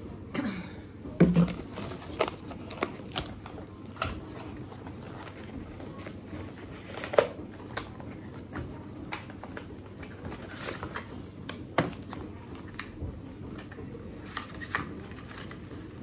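A cardboard box and a small plastic device being handled while unboxing: scattered taps, clicks and rustles, loudest about a second in and again around seven seconds in.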